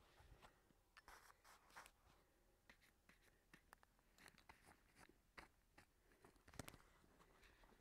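Near silence with faint, scattered clicks and crackles, one slightly louder knock near the end.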